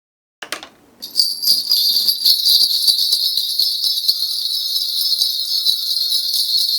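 A shaman's ritual bell cluster (bangul) shaken steadily: a loud, dense, continuous jingling of many small bells that starts about a second in, after a single click.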